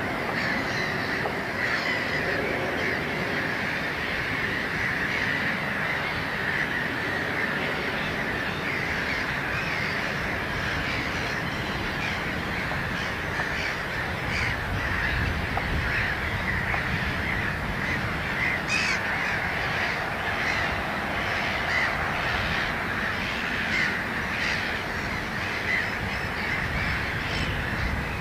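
Wetland bird chorus: many birds calling at once in a dense, unbroken stream of short overlapping calls, with a few louder, sharper calls standing out from about halfway through.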